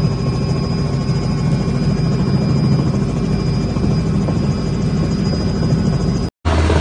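Helicopter running steadily with a rapid rotor chop and a high turbine whine. It cuts off abruptly about six seconds in.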